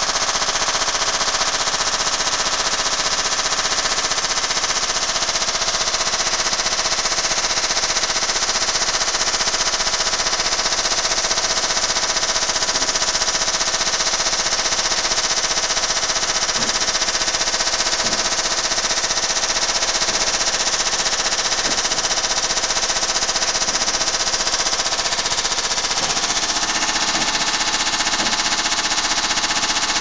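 Front-loading washing machine running on a spin with a large rock loose in its drum, the rock hammering rapidly against the drum in a continuous, loud clattering racket that is wrecking the machine.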